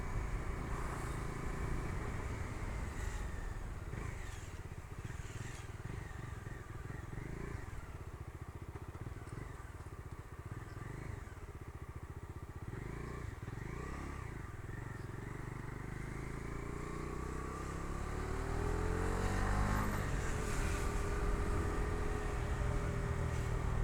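Bajaj Dominar 250's single-cylinder engine running as the motorcycle rides along two-up, steady and low at first. About three-quarters of the way through it accelerates, the engine note rising in pitch and growing louder.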